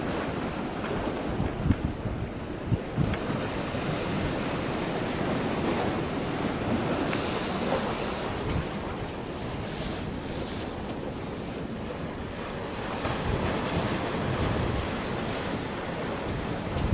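Wind buffeting the microphone over the steady wash of small waves against concrete breakwater blocks, with a couple of low gust thumps about two seconds in.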